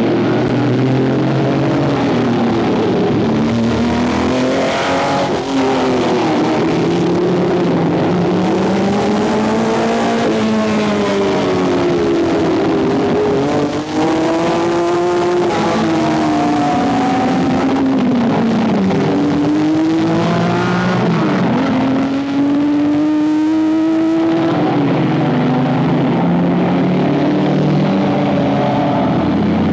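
Ferrari cars lapping a race circuit at speed, their engine notes rising and falling every few seconds as they accelerate, change gear and go past, with no break in the engine sound.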